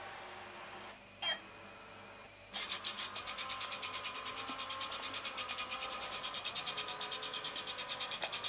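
A short, loud electronic chirp about a second in, then the small gear motors of a home-built rover robot start up: a rasping whir that pulses about seven times a second as it drives.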